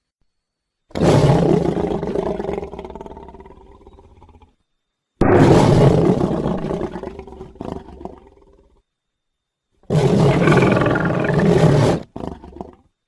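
Three cartoon alligator roar sound effects, one after another with silence between. The first two start hard and fade away over about three seconds. The third holds steady and cuts off suddenly, followed by a short trailing growl.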